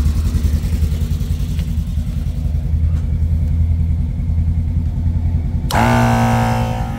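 12-volt twin-cylinder air compressor running with a fast, steady pulse, pumping air into a strapped tractor tire to seat its bead. Near the end the sound jumps louder and a higher steady hum joins in.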